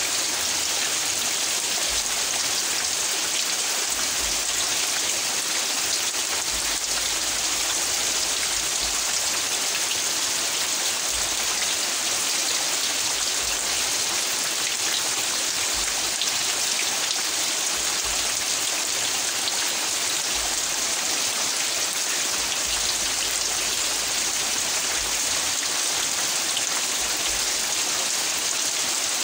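Steady rain falling on wet ground and foliage: an even, unbroken hiss.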